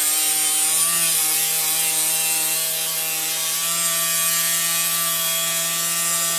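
Rotary tool mounted in a wooden jig, its small drum running under load against a 4 mm wooden dowel being pulled through to cut a flat along it: a steady motor whine with a rasping hiss of wood being abraded.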